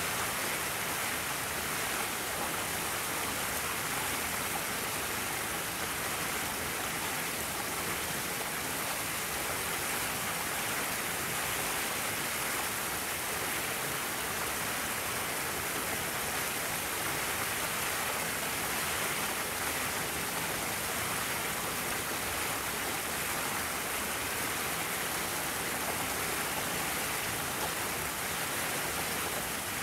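Steady, even hiss of water, rain or running water, unbroken throughout.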